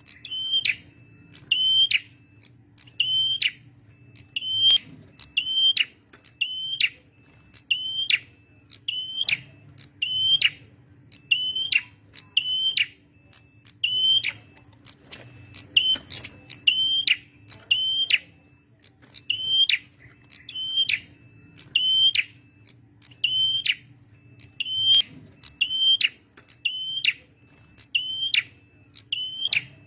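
Male prenjak merah singing: a sharp, high call note repeated a little more than once a second, each note dropping steeply in pitch, over a faint steady low hum.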